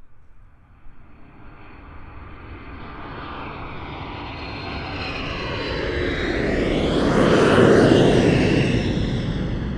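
An aeroplane flying overhead: its engine noise swells steadily, is loudest about eight seconds in as it passes over, then begins to fade, with a sweeping, shifting hiss in the upper range as it goes by.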